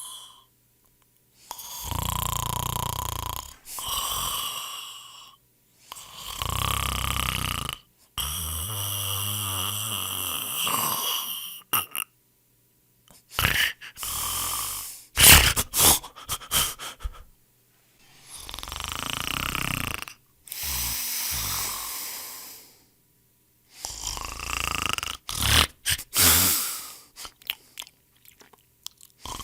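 A person snoring loudly: a run of snores, each about one to three seconds long with silent gaps between them. A longer buzzing, rattling snore comes about eight seconds in, and a quick cluster of short choppy snores follows in the middle.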